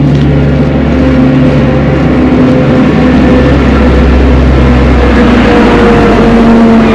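Engine of a heavy road-construction machine running loudly and steadily close by as it comes past.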